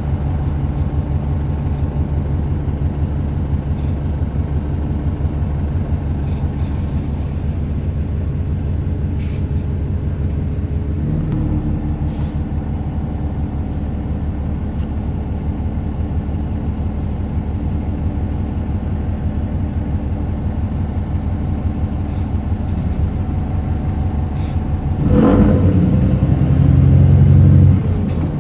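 VDL DB300 double-decker bus engine running with a low, horrid grumbling noise. About 25 seconds in it gets louder and rises in pitch for a few seconds as the bus accelerates, then drops back.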